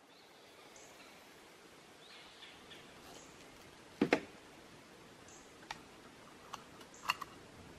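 Bolt of a CZ 527 bolt-action carbine being worked after a shot: a pair of sharp metallic clicks about four seconds in, then a few fainter clicks near the end.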